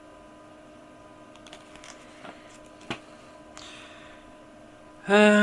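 Faint handling sounds of the bike lock's box contents: a few light ticks, one sharp click and a short rustle, over a steady electrical hum. A man's voice sounds briefly near the end.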